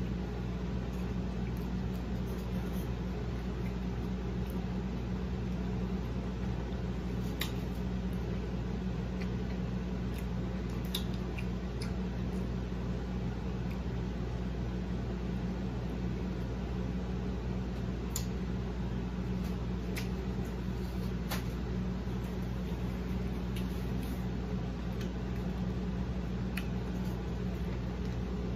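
Close-up eating sounds of a bacon cheeseburger being chewed, heard as a few short, faint mouth clicks and smacks, over a steady low hum that is the loudest thing throughout.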